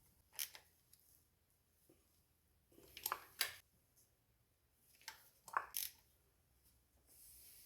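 A few short, quiet metallic clicks and scrapes in separate clusters, from hand tools fitting spark plugs into a four-cylinder engine.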